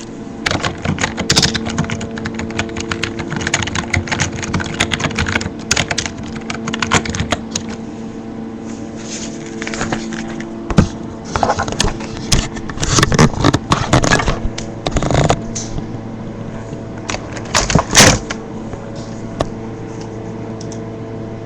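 Typing on a wireless keyboard: quick, irregular runs of key clicks, with a few louder bunches of clacks in the middle and fewer keystrokes near the end, over a steady low hum.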